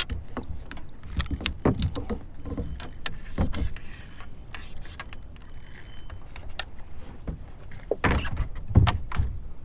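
Irregular knocks, bumps and light clatter of handling on a kayak, with the heaviest thumps about eight to nine seconds in.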